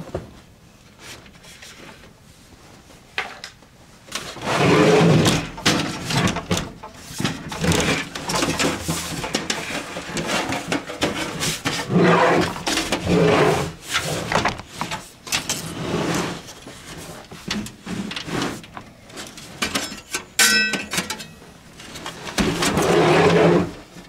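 Irregular rubbing, knocking and clattering of things being handled close to the microphone, starting about four seconds in, with a quick rattle of clicks near the end.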